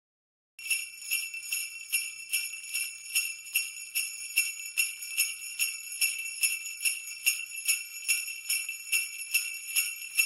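Jingle bells shaken in a steady rhythm, about two to three shakes a second, starting about half a second in.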